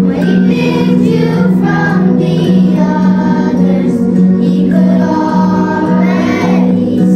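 Children singing together over a recorded backing track, a melody of several voices above steady held chords.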